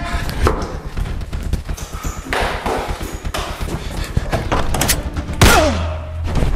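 Knocks and thumps of a wooden double door being handled and opened by its metal bar handles. About five seconds in comes a loud hit with a falling tone and a low hum after it.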